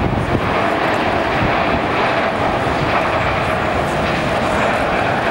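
Jet roar from a formation of Blue Angels F/A-18 Hornets flying past, a loud, steady rush of jet engine noise.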